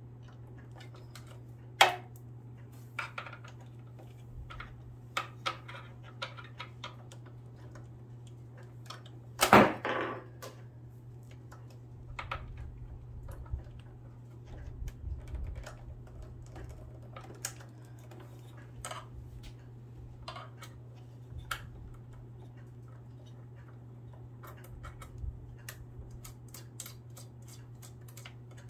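Small metal clicks and taps of a screwdriver and loose screws being handled on a Singer sewing machine while its needle plate is taken off, scattered and irregular, with a louder knock about ten seconds in. A steady low hum runs underneath.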